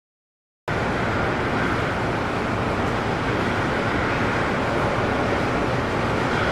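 Dead silence for under a second, then a steady, unbroken rushing noise with a low rumble underneath.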